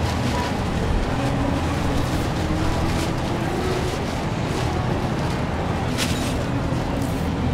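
Steady street noise dominated by a low traffic rumble, with a few light clinks about six seconds in.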